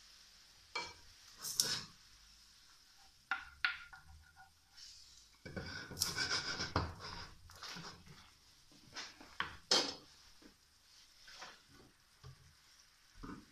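A utensil stirring and scraping sauce in a nonstick frying pan, with scattered clinks and knocks against the pan; the stirring is busiest around the middle.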